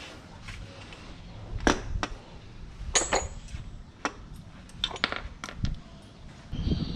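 Irregular sharp metallic clinks and knocks, about half a dozen, of tools and the starter motor being handled against the car's underside while the starter is worked out past the axle.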